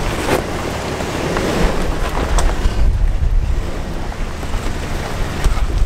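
Strong wind buffeting the microphone with a loud rushing noise that eases about three seconds in, leaving mostly low rumbling.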